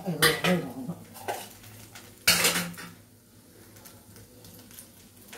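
Metal kitchenware clattering: a few light clinks in the first second, then a louder clank with a short ring a little past two seconds, as a dosa is lifted from the frying pan and set aside.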